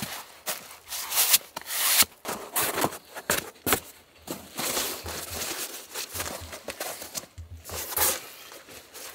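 Crinkling and rustling of a plastic tarp ground sheet as a rolled foam sleeping pad is handled and unrolled onto it, in short irregular bursts.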